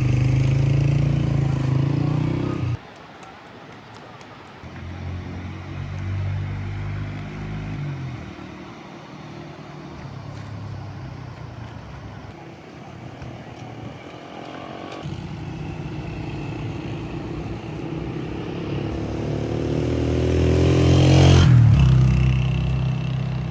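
Motor vehicles passing close by, their engines loud in the first seconds, cutting off abruptly near three seconds in. A vehicle approaches and passes loudest about 21 seconds in, its engine pitch dropping as it goes by, over a steady rush of noise that fits the flowing river.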